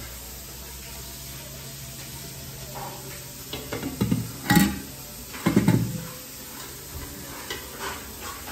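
Aluminium cooking pots being handled: a cluster of loud metal clanks and knocks from pot lids and a wooden spoon about halfway through, then a few lighter clicks, over a steady low hum.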